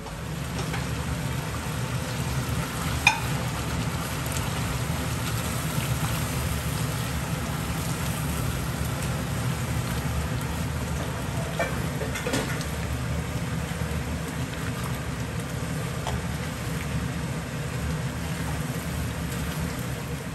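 Chicken curry simmering and sizzling in a pan on a gas stove while a spatula stirs it, over a steady low hum. Two sharp clicks of the spatula on the pan come a few seconds in and again about midway.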